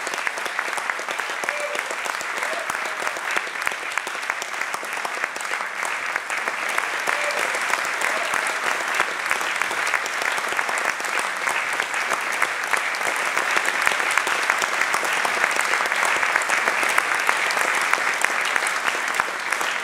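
Concert audience applauding steadily, swelling a little louder in the second half.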